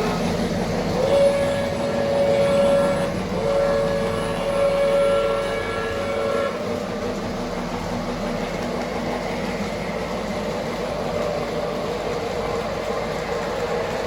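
Sound-equipped O gauge model train giving two long chord-like signal blasts in the first six or so seconds. The train runs on the track with a steady rumble underneath, and the rumble carries on alone afterwards.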